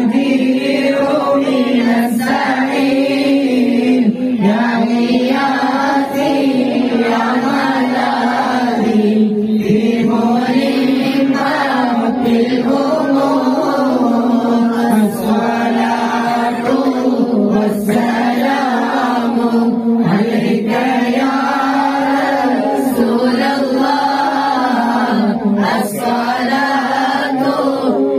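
Group of boys and young men chanting mawlid (Arabic devotional praise verses for the Prophet) together in unison, amplified through a handheld microphone. The chant runs on without a break in one steady, level melody.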